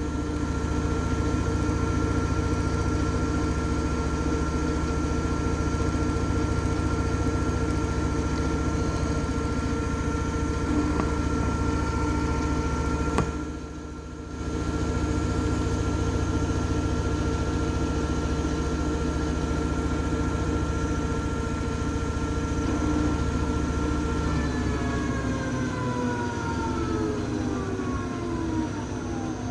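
Washing machine running with a steady motor hum and whine. About 13 seconds in the sound briefly drops away. About 24 seconds in the whine falls steadily in pitch as the motor winds down.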